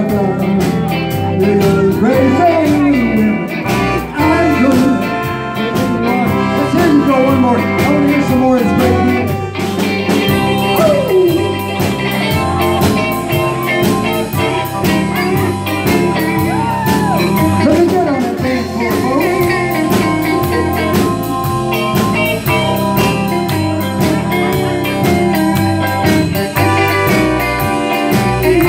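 Live blues band playing, with drum kit and electric guitar keeping a steady beat under a bending melody line.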